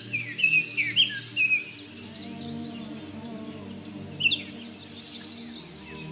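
Birds chirping in short falling notes: a busy flurry in the first second and a half, then quieter, with another pair of chirps about four seconds in. A soft sustained music bed runs underneath.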